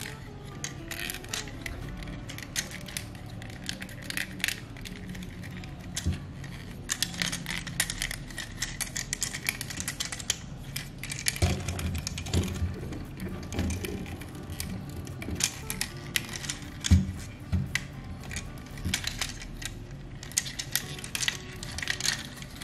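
Plastic parts of a Transformers Optimus Prime toy clicking, snapping and rattling as the figure is folded into truck mode by hand: many small irregular clicks, with a louder knock about seventeen seconds in, over background music.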